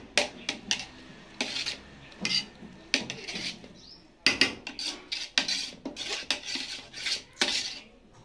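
Metal ladle scraping and knocking against the side and bottom of a metal pot while stirring part-cooked basmati rice biryani, in irregular strokes with the rustle of the rice.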